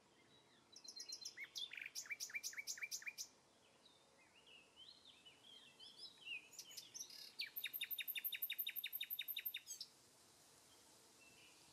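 A songbird singing two runs of fast repeated high notes, the first about a second in and the second, longer and quicker, past the seventh second, with scattered chirps in between.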